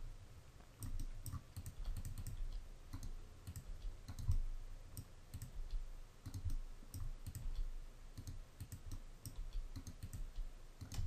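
Scattered clicks of a computer keyboard and mouse at irregular intervals, the G key being pressed again and again.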